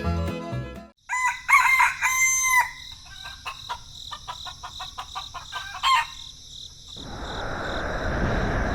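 A rooster crows once, starting about a second in, right after background music ends. Light clicking and a short call follow, then a rushing noise swells near the end.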